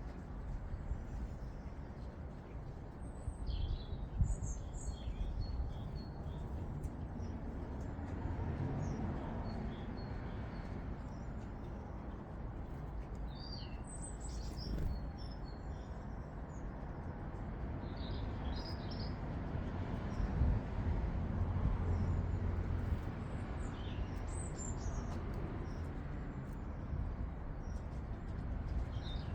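Small garden birds chirping and calling in short scattered bursts, over a steady low background rumble.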